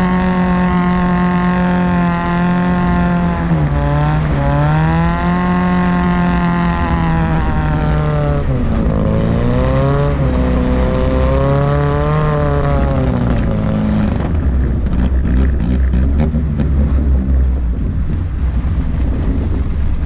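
1972 Datsun 510 wagon's engine and exhaust held at high revs while sliding in donuts on dirt, the revs dipping and climbing back twice as the throttle is worked. About two-thirds of the way through, the engine note falls away into a rough rumble of wind and tyres on dirt.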